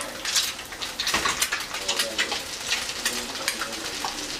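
A duck egg frying in hot butter in a skillet: steady sizzling with irregular crackles and spatters, and a louder burst of crackling about a second in.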